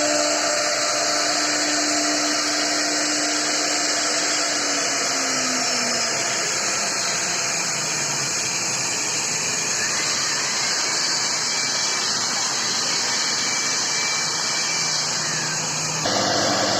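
CNC router spindle running and cutting into wood, a steady hissing whine. A low hum under it drops in pitch about five seconds in, and the sound changes abruptly near the end.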